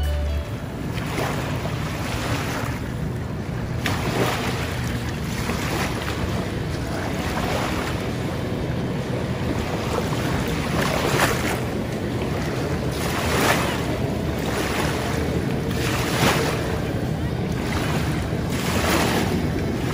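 Wind buffeting the microphone over choppy river water, gusting every second or two, with the low drone of two jet skis running slowly on the water.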